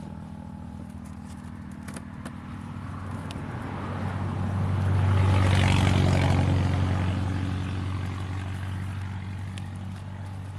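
A motor vehicle passes by, its engine sound building to a peak about halfway through and then fading, over a steady low engine hum.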